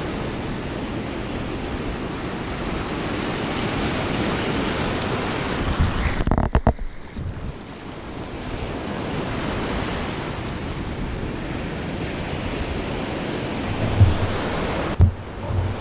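Surf washing up the shore, with wind on the microphone. About six seconds in the sound goes briefly muffled with a few clicks, and there are two low thumps near the end.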